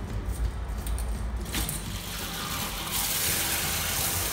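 A brass ball valve is turned open with a short click about a second and a half in. Water then starts to rush through the newly connected shower hose, a steady gush that gets louder about three seconds in.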